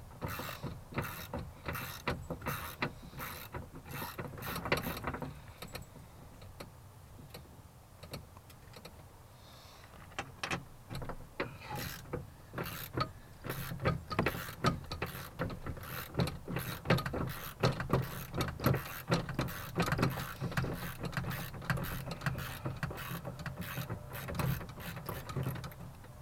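Hand ratchet clicking as the bolts holding a car door's window regulator are unscrewed: a run of rapid clicks, a pause of a few seconds, then a longer, faster run of clicking.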